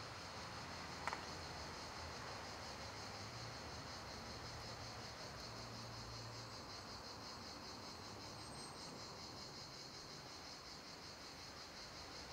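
Crickets chirping steadily in a high, pulsing trill, with one short click about a second in.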